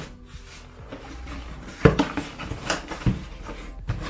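Corrugated cardboard shipping box handled by hand: a flap bent back and the box tipped over. There is a sharp knock about two seconds in, then lighter knocks and scraping rustle of cardboard.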